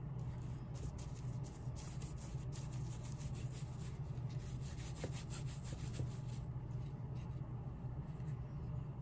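Quick scratchy rubbing strokes on a shoe sole as dye is smeared onto it, over a steady low hum. The strokes stop about six and a half seconds in.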